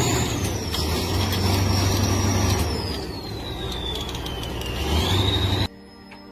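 Heavy machinery running with a steady low engine drone and a high whine that rises, then slowly falls in pitch. The sound cuts off abruptly near the end, leaving only a faint hum.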